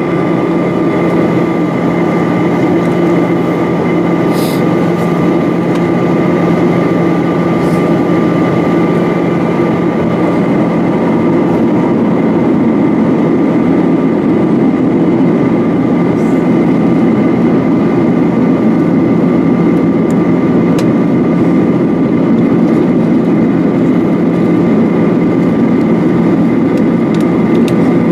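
Steady in-cabin noise of a Boeing 737-800 in descent: its CFM56-7B turbofan engines and rushing airflow, a constant deep hum with thin steady whines above it.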